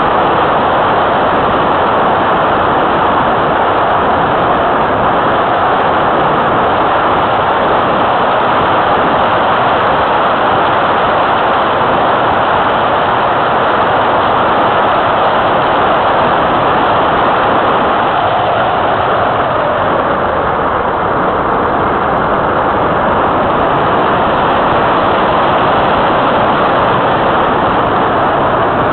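Airflow rushing over a keychain camera mounted on the wing of an Easy Glider Pro RC glider in flight: a loud, steady hiss of wind on the microphone, with no distinct tones.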